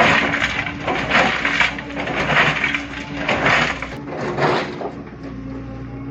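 Rocks crunching and clattering in repeated bursts, about one a second, over a steady diesel engine of heavy machinery, as boulders are loaded. The crunching dies away near the end, leaving the engine alone.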